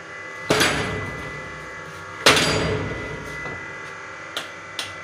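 Manual soap punch press stamping a soap bar: two heavy strikes of the brass die, each trailing off briefly, followed by a few light clicks near the end.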